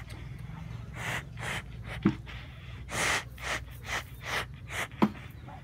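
Dry straw rustling in short repeated scratches as a young chick rakes through it with its feet while foraging, with two sharp low knocks, about two seconds in and near the end.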